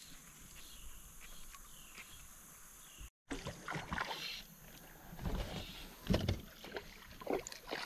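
Water splashing and sloshing around a kayak in a run of irregular splashes, starting after a brief cut about three seconds in; before that only faint river ambience.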